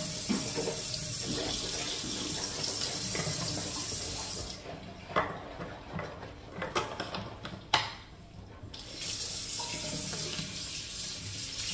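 Bathroom sink tap running water. It shuts off about four and a half seconds in, a few short sharp sounds follow in the quiet gap, and the tap runs again from about nine seconds in.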